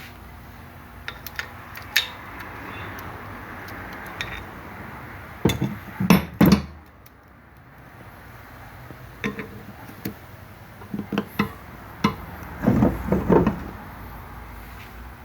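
Metal motorcycle parts and tools being handled on a workbench: scattered clinks and knocks, with louder clusters of clatter about six seconds in and again near thirteen seconds.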